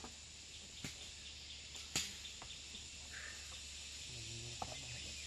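A handful of sharp knocks and clicks, the loudest about two seconds in, over a steady high insect drone.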